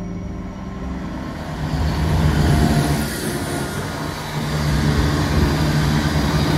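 Class 168 diesel multiple unit passing close by: the diesel engines drone under the rumble of wheels on the rails, swelling about two seconds in and again as the later cars go past.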